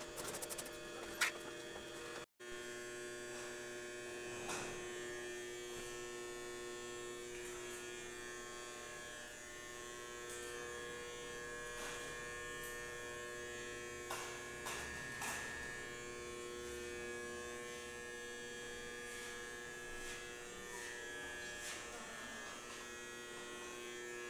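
A steady buzzing hum made of several fixed tones, with a few faint clicks, after a brief cut-out about two seconds in.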